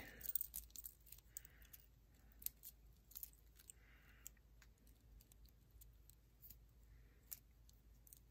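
Faint, scattered clicks of beads knocking together as a strung bracelet is handled and its beading wire pulled to take up the slack.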